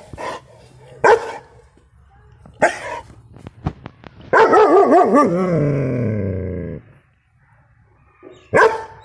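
Six-month-old German Shepherd barking: a few single deep barks about a second or more apart, then a long wavering drawn-out cry of over two seconds, and one more bark near the end.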